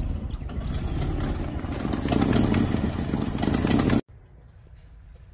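A 1966 Ford F100's engine running just after being revived from about twenty years of sitting. It swells louder a couple of seconds in, then cuts off suddenly about four seconds in, leaving faint light clicks.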